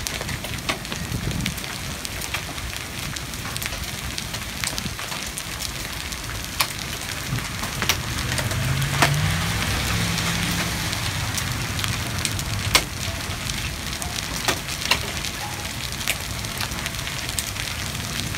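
Hail and rain falling during a thunderstorm: hailstones strike hard surfaces in sharp, irregular clicks over a steady hiss of rain.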